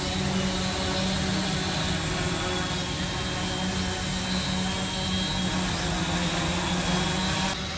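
Electric quadcopter's four motors and propellers hovering, a steady buzzing hum.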